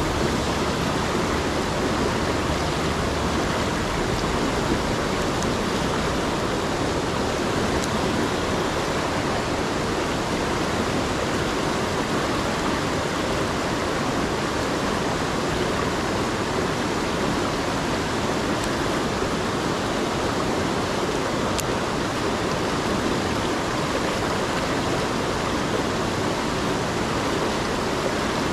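A rocky stream rapid rushing steadily over and between boulders.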